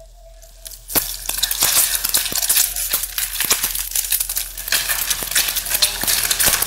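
Raw eggs hitting a pot of hot oil, which bursts into loud sizzling and crackling with many sharp pops about a second in as the eggs start to fry.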